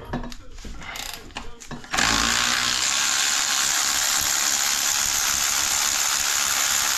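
A few tool clicks, then a power tool running steadily for about five seconds, starting abruptly about two seconds in and cutting off near the end, while fasteners are worked off a 4L60 automatic transmission's tail housing.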